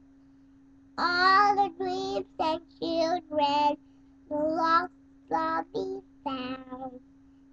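A three-year-old boy singing a song in short phrases, starting about a second in.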